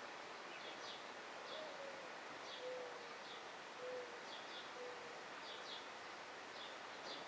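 Dove cooing: one longer note that slides up and down, followed by three shorter, even coos about a second apart. Short high chirps from a small bird repeat throughout over a steady outdoor hiss.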